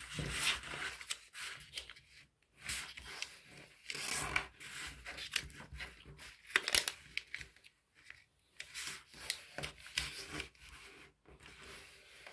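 A sheet of thin origami paper being folded and creased by hand, the corners brought in to the centre: irregular rustling and crinkling as the paper is handled and the folds are pressed flat.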